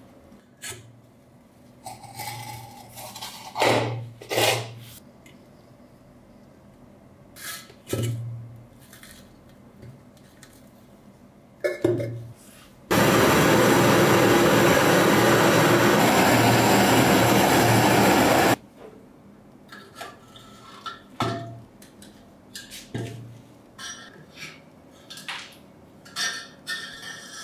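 Rusty metal lamp parts clinking and scraping against tools. About 13 seconds in, a handheld gas torch hisses loudly and steadily for about six seconds, then cuts off, and the clinks and scrapes of metal on metal resume.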